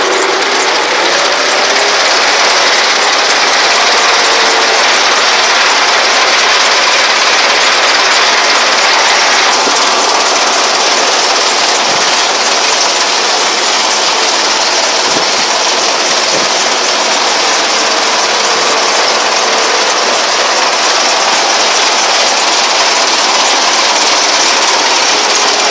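Tractor-mounted potato harvester running behind a tractor, a loud, steady mechanical clatter and rattle with the engine underneath.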